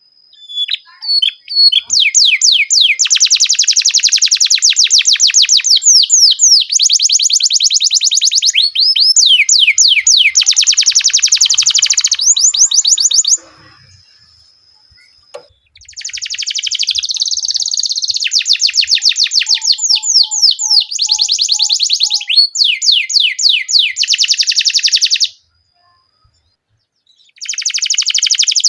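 Domestic canary singing a long, rolling song of rapid trills, each made of fast-repeated notes. It sings in two long stretches of about twelve and ten seconds with short pauses between, then starts again near the end.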